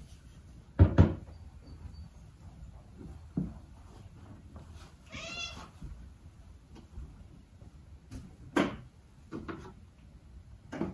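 Domestic cat meowing once, a short bending call about halfway through. Several sharp clunks and knocks sound around it, the loudest two close together about a second in.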